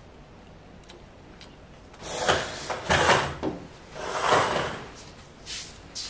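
Two loud sliding scrapes, each about a second long, the first about two seconds in and the second about four seconds in, followed by a lighter knock near the end.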